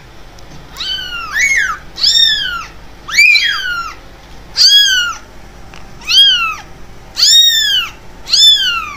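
Young kittens mewing: about ten high-pitched mews, roughly one a second, each rising and then falling in pitch, with a few calls overlapping.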